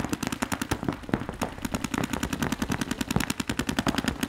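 Paintball markers firing fast, steady streams of shots, more than ten shots a second.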